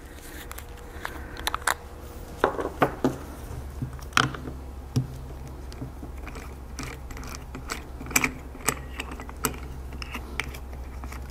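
Irregular light metal clicks and taps of a hydraulic hose's quick-connect fittings being handled: the quick-disconnect cap threaded off and the coupler worked onto the hydraulic cylinder's port.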